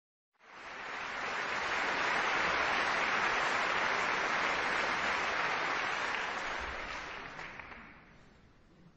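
Audience applauding in a large concert hall. It starts about half a second in, holds steady, and dies away near the end.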